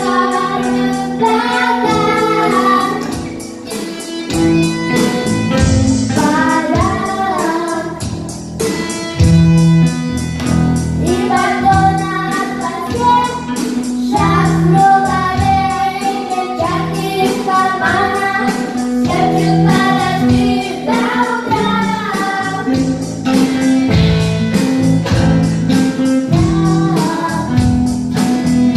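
A live band rehearsing a rock song: voices singing a melody over strummed guitar with a steady beat.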